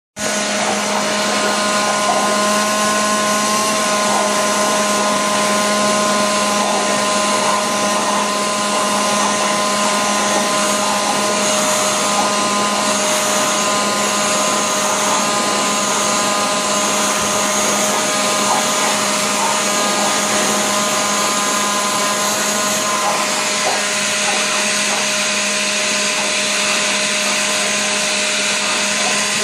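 Electric blower running steadily, a constant motor whine over a loud rush of air from its nozzle.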